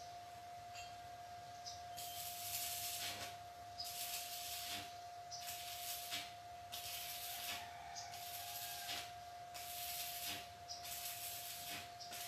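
Electric arc welding on a steel frame: about eight short bursts of crackling hiss, each roughly a second long and starting about two seconds in, as the welder lays a run of short welds.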